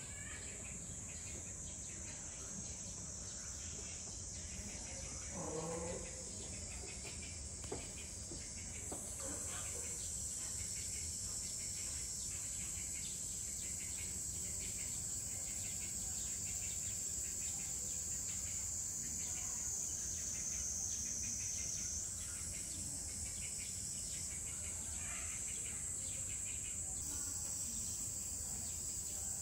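Cicadas droning in a steady high-pitched chorus that grows louder about nine seconds in, with a single sharp click about eight seconds in.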